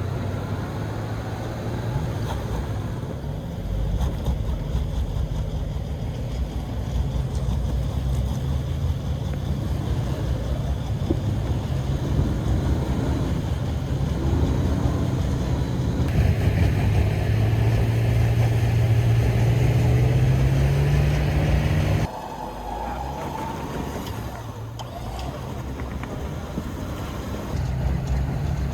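A 4x4's engine running under load on a trail obstacle. It revs with a rising pitch and a hiss over it for several seconds, then drops back suddenly about three quarters of the way through and picks up again near the end.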